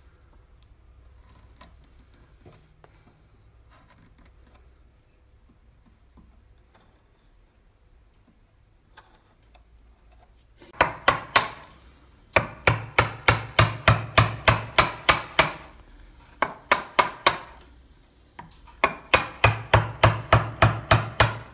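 Faint clicks and scraping of a hand gouge paring wood, then a carving chisel struck repeatedly with a mallet, sharp ringing blows at about four a second in several runs, the loudest from halfway on.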